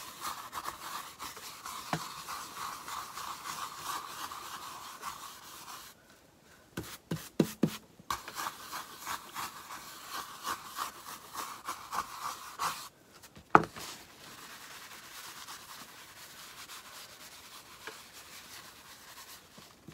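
Scratchy rubbing of an applicator over the face of a wooden shingle as a coating is worked in. It stops for a couple of seconds about six seconds in, where a few light clicks sound, and briefly again about two-thirds through, where a single sharp tap is the loudest sound.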